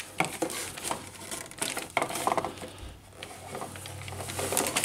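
Handling noise from plastic Han Solo and Jabba the Hutt toy figures being turned over and moved in the hands: a run of small clicks, taps and rustles.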